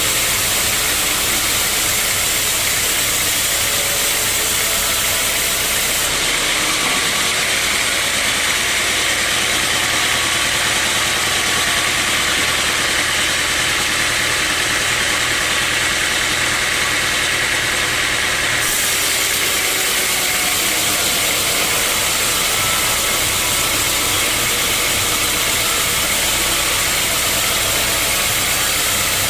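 Sawmill machinery running loud and steady as a teak log is sawn. From about six to eighteen seconds in, the sound changes to a steadier, brighter tone with a low hum under it, then goes back to the earlier noise.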